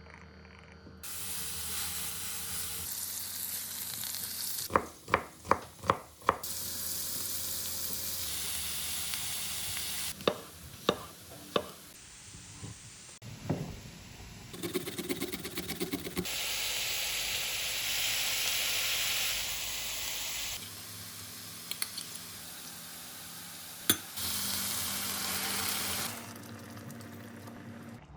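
Food sizzling as it fries in oil in a pan, in several spliced stretches. The sizzle is broken by clusters of sharp knocks from kitchen utensils or a knife, about five in quick succession a few seconds in and several more around ten seconds in.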